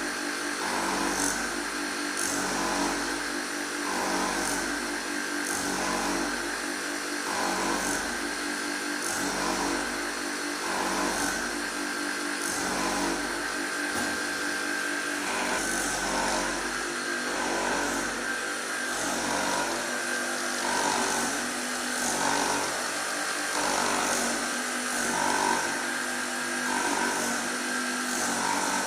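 Surface grinding machine running: a steady motor hum with a grinding swish that repeats about once a second.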